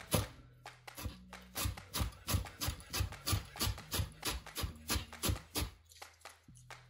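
Chef's knife chopping fresh Italian parsley on a wooden cutting board: steady, rhythmic knocks of the blade on the board, about three a second. Soft background music plays underneath.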